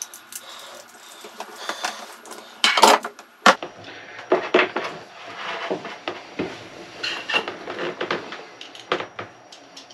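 Small hand tools and metal terminal hardware clicking and clinking as an electrical terminal fitting is worked on by hand: a run of short, irregular clicks and clatters, the loudest a clatter about three seconds in followed by a sharp click.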